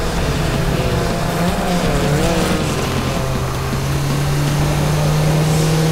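Race car engines running steadily at speed, with background music.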